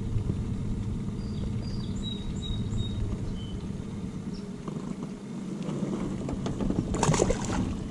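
Boat's outboard motor running with a steady low hum at trolling speed, with a few faint bird chirps in the first half. Near the end comes a short splash as a small northern pike is dropped back into the water.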